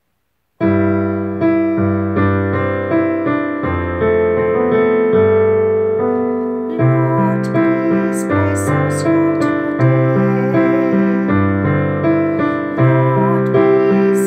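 Piano playing the accompaniment to a school song, starting suddenly about half a second in with chords at a steady, regular pace.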